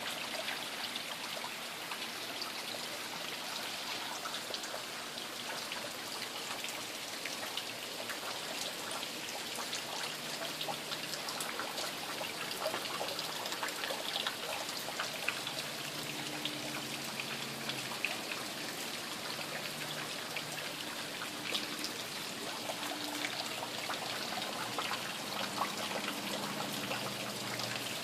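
Steady rain falling, with many individual drops striking hard surfaces.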